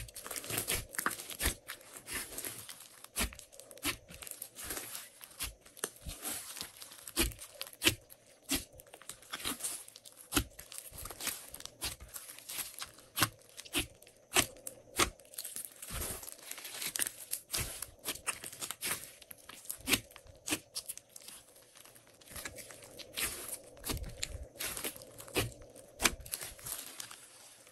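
Glossy slime being kneaded and stretched by hand as another slime is mixed in, giving dense, irregular sticky pops and clicks.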